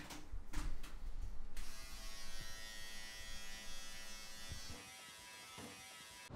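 A few short knocks, then about a second and a half in an electric beard trimmer switches on and buzzes steadily against the face. The buzz cuts off abruptly at the end.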